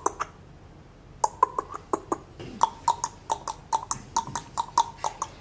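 Clip-clop of galloping hooves imitated with quick tongue clicks, several a second in an uneven rhythm, pausing for about a second near the start.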